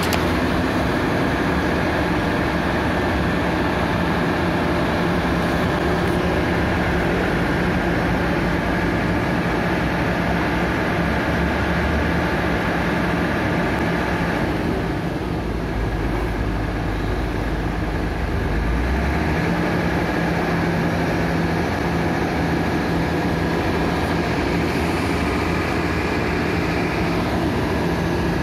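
Volvo EC480DL excavator's diesel engine running steadily as the machine works. About halfway through, the engine note drops and a deeper rumble comes in for a few seconds, then the steady note returns.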